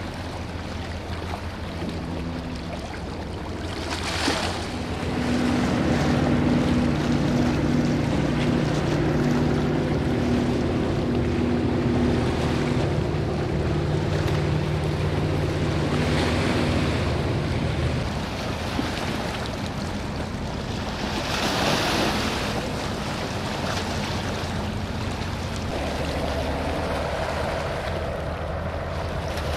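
A boat's engine running with a steady low hum, which grows louder about five seconds in and fades after about eighteen seconds, over a constant wash of water and wind noise. Two short gusts of noise break through, one near the start and one about two-thirds of the way through.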